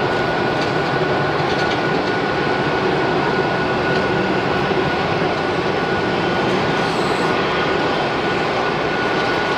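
Airbus A380's four turbofan engines running at low taxi power: a steady jet noise with a high, even whine and no spool-up.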